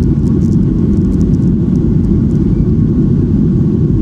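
Jet airliner cabin noise in flight: a loud, steady deep rumble of engines and rushing air heard from inside the passenger cabin.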